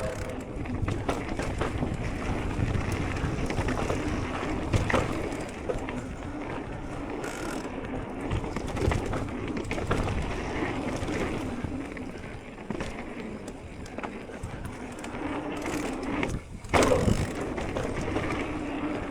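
Orbea Wild electric mountain bike riding down a dirt trail: knobby tyres rolling and crunching over the ground and the bike rattling over bumps, with a louder clatter near the end.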